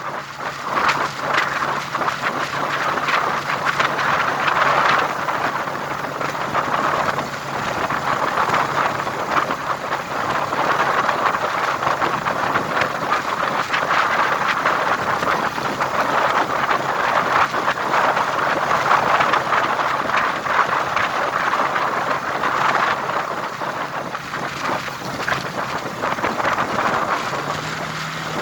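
A road vehicle running along, with wind rushing over the microphone. A steady low engine tone sits under the wind noise and steps up slightly in pitch near the end.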